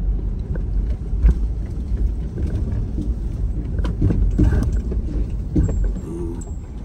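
A car being driven: a steady low rumble with scattered knocks and rattles.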